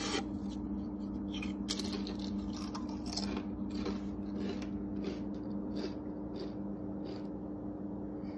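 Potato chips rustling and crunching as a hand rummages in a cardboard chip can, a series of short crisp crackles, over a steady low hum.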